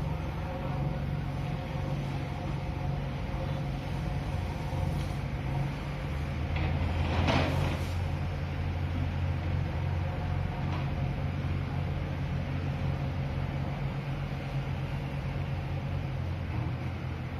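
A JCB backhoe loader's diesel engine runs steadily and works harder from about six seconds in. A brief gritty rush of crushed stone comes about seven seconds in as the bucket works the gravel pile.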